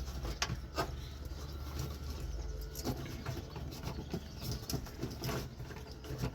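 Scattered light clicks and knocks of a 1956 Ford truck's headlight switch being handled as it hangs by its wires under the dash, over a steady low hum.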